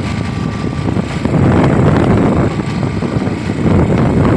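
Fishing boat's engine running, a steady low rumble.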